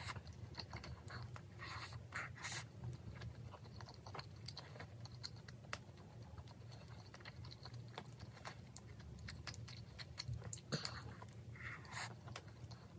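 Close-up mouth sounds of a person chewing a mouthful of rice and braised chicken: soft wet clicks and smacks, with a few louder smacks about two seconds in and again near the end.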